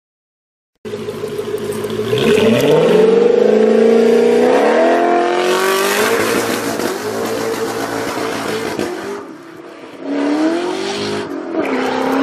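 Sports car engine revving hard as the car launches with its rear wheels spinning, the pitch climbing through the gears and dropping briefly at each shift, starting about a second in. A hiss of tyre noise rides over the engine for a few seconds in the middle.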